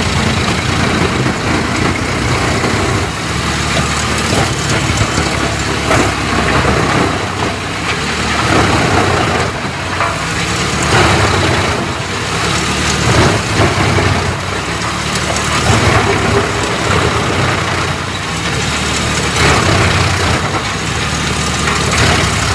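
Large wood chipper running, its engine steady, with irregular louder surges every few seconds as wood goes through the machine.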